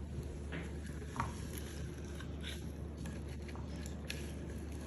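Faint, scattered ticks and rustles of dry rice grains being scooped and poured into cups, over a steady low hum.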